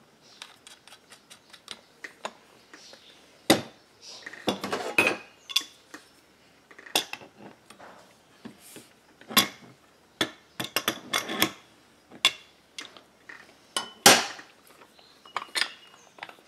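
Steel tools and puller parts clinking and clanking on a workbench as a homemade crankcase puller is fitted together: scattered sharp metal clicks, with louder knocks about three and a half, nine and fourteen seconds in.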